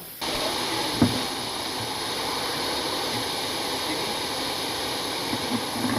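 A steady hiss cuts in abruptly just after the start and runs on evenly, with one sharp knock about a second in and a few soft low thuds near the end.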